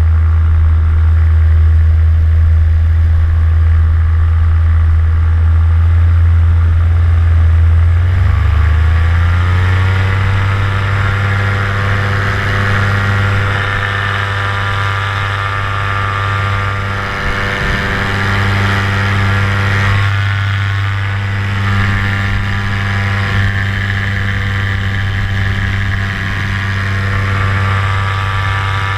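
Vittorazi Moster 185 paramotor's single-cylinder two-stroke engine and propeller running steadily in flight. About eight seconds in, the engine speeds up, its pitch rising over a couple of seconds, then it holds steady at the higher speed.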